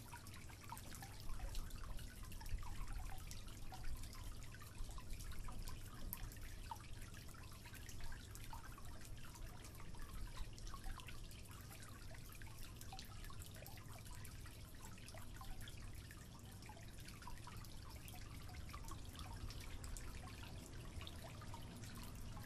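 Water dripping from a leaking tap into a sink: many small, irregular plinks over a low steady rumble.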